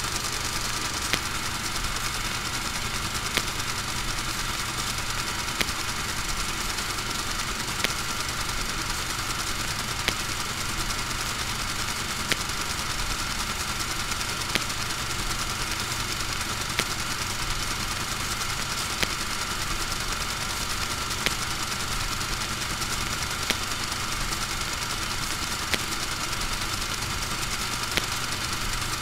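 A steady mechanical drone with a faint high tone running through it, and a sharp click about every two seconds.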